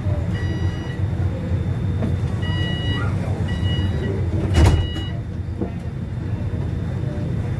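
Tram door warning signal beeping four times over the steady low hum of the stopped tram, with a sharp thud about four and a half seconds in.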